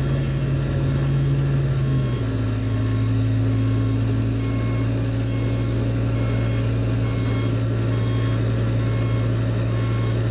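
Container-handling machinery running with a steady low drone that steps down slightly in pitch about two seconds in, under repeating electronic warning beeps, roughly one a second.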